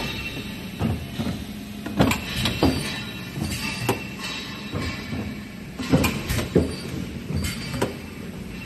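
Powder-metal compacting press running on a factory floor: a steady machine hum with irregular metallic clanks and thuds, several close together about two and six seconds in.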